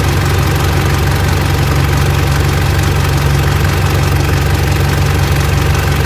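Mitsubishi L200 Triton's 3.2 diesel engine idling steadily at working temperature, with the timing chain knocking. The knock only appears once the engine is hot, which the mechanic puts down to the chain expanding with heat.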